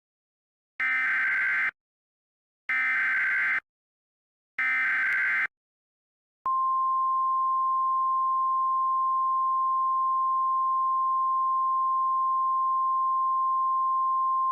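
Emergency Alert System header: three one-second bursts of warbling digital data, about two seconds apart, then, about six and a half seconds in, the long steady single-pitch alert tone begins and holds.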